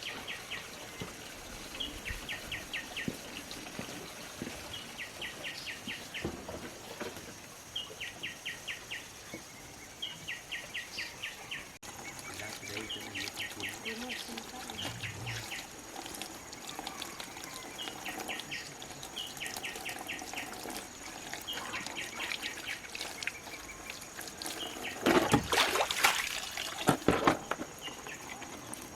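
A bird calling over and over: short trills of about half a second of rapid clicks, repeated every second or two, over a steady high-pitched tone. Near the end come a few loud knocks and scrapes.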